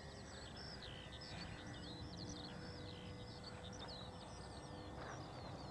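A bird singing a continuous run of quick, high warbling notes, with a faint steady hum underneath that fades out near the end.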